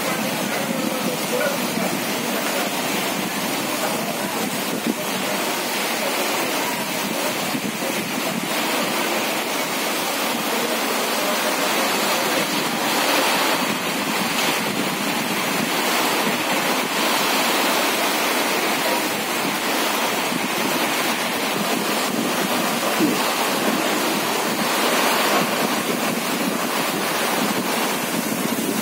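Heavy rain pouring down in a storm, a steady dense hiss of rain on roofs, awnings and street.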